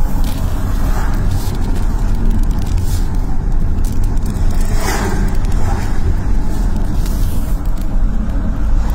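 Steady road and engine rumble heard from inside a moving car's cabin, with a brief whoosh about five seconds in.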